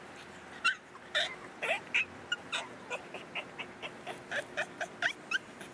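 Boston Terrier "talking": a rapid run of short, high whines and yips, about three or four a second, starting about half a second in and many rising in pitch. She is vocalising to demand her ball.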